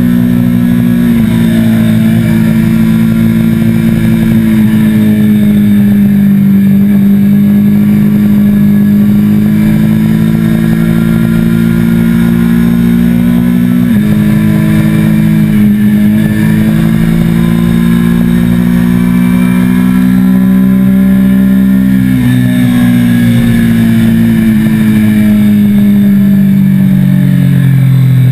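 Triumph sport motorcycle's engine running hard at track speed, heard from on the bike. The engine note drops abruptly about a second in and again about halfway, climbs steadily after the second drop, then falls away over the last few seconds.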